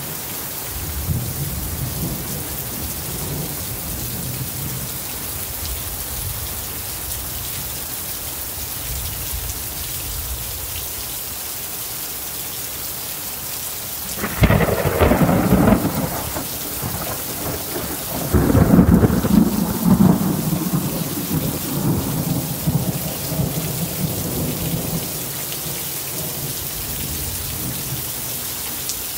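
Monsoon thunderstorm: steady rain hissing throughout, with a sudden crack of thunder about halfway through and a second, louder thunderclap a few seconds later that rumbles on for several seconds before fading back into the rain.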